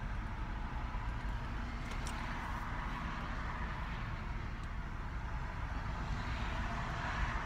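Car idling, heard from inside its cabin: a steady low engine rumble under an even hiss of air.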